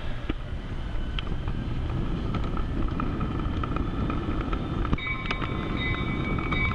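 O-scale model train running on three-rail track: a steady low rumble of wheels and motor with irregular clicks as the wheels cross rail joints. Faint steady tones join about five seconds in.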